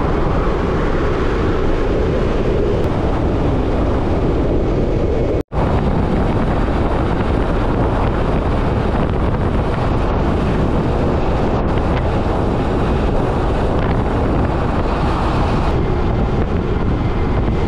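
Heavy wind buffeting a moving camera's microphone while riding a bicycle along a highway. It cuts out for an instant about five and a half seconds in.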